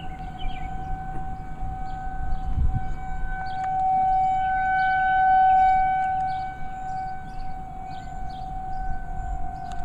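Outdoor tornado warning siren sounding a steady single-pitch tone for the monthly siren test, swelling louder about halfway through and easing back down.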